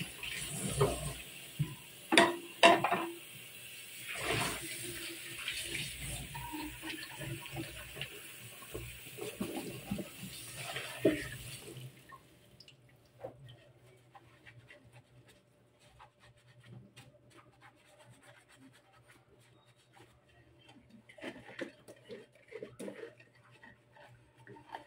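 Tap water running from a hose onto a clear plastic water-filter housing as it is rinsed in a stainless steel sink, with a few sharp knocks of the plastic being handled. The water cuts off about halfway through, leaving quieter clicks and rubbing as the soapy housing is handled and washed.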